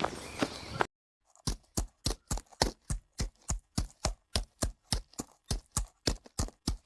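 A steady, even run of short, dull thuds, about three to four a second, starting about a second and a half in. Before it, a rustling with footfalls cuts off just under a second in.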